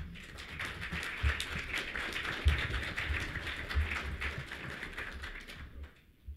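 Audience applauding, dying away shortly before the end, with a few dull thumps underneath.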